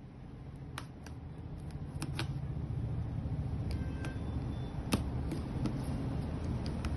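A blade slitting clear packing tape along the seam of a cardboard box: scattered sharp clicks and scratches. Under them is a steady low rumble that slowly grows louder.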